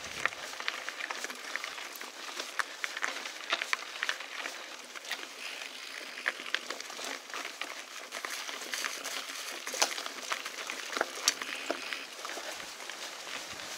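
Mountain bike rolling over a dirt and gravel trail: steady crackle of tyres on loose grit with many scattered sharp clicks and rattles from the bike.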